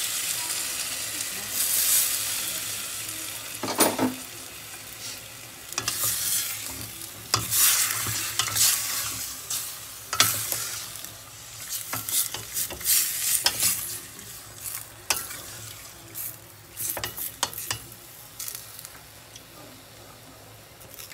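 Wooden spoon stirring pork belly pieces in a stainless steel pot, over a steady sizzle of the meat cooking. The scrapes and knocks come irregularly, and the sizzle grows fainter toward the end.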